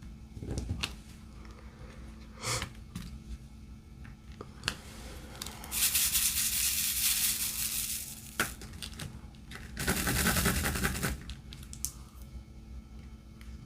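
Diamond painting at the table: scattered light clicks and taps of the drill pen and small plastic pieces, and two spells of dense rattling of resin drills in a plastic tray. The first spell, about six seconds in, lasts roughly two seconds; the second, about ten seconds in, is shorter.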